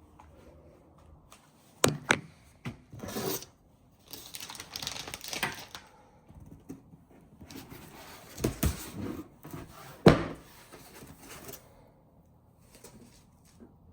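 A cardboard shipping box being handled and opened: a couple of sharp knocks, stretches of scraping and ripping, and two heavier thuds near the middle.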